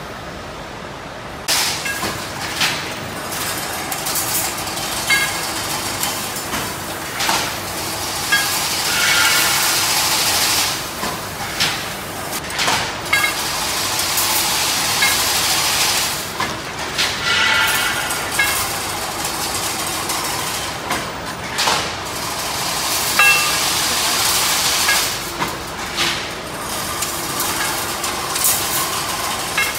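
Automatic chain link fence weaving machine running: steady mechanical noise with a hiss and sharp metallic clanks about once a second. It turns suddenly louder about a second and a half in.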